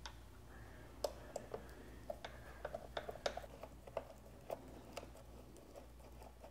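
Screwdriver driving the screws of the plastic weather cover on the scooter's wiring box: faint, irregular small clicks and ticks of the screws and tool, bunched between about one and five seconds in.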